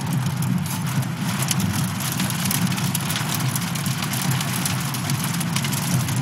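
A vehicle engine running steadily with a low rumble, while heavy rain patters on the vehicle in many small ticks.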